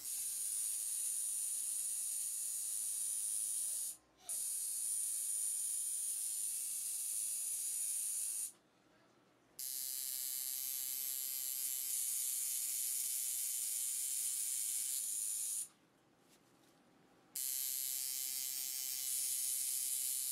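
Electric tattoo machine running with a steady high buzz. It cuts out briefly about four seconds in, then twice more for a second or so between passes.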